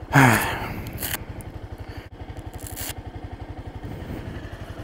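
Honda CBR300R's single-cylinder engine idling with an even, rapid pulse. A loud rustle of gloved hands fumbling at the helmet strap near the start, and another brief rustle about three seconds in.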